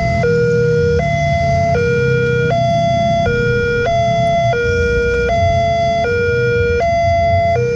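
Railway level crossing warning sirens sounding a steady two-tone alarm, a higher and a lower note alternating about every three-quarters of a second, warning that a train is approaching as the barriers come down. A low rumble runs underneath.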